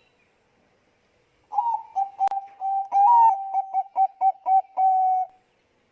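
Zebra dove (Bangkok perkutut) cooing: starting about a second and a half in, a run of short clipped notes on one pitch, ending in a longer held note. A single sharp click sounds early in the call.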